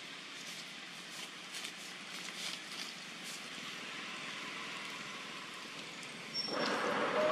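Steady outdoor background noise, a hiss with a few faint clicks, that turns suddenly louder about six seconds in.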